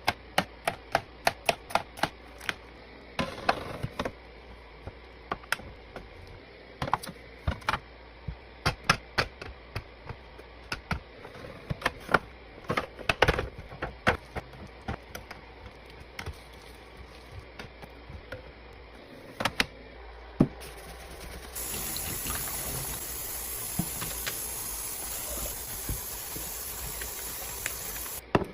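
Fridge restocking sounds: plastic containers, jars and packages being handled and set down, making many quick clicks and knocks. About 21 seconds in, a steady rushing hiss starts and runs for several seconds before cutting off suddenly.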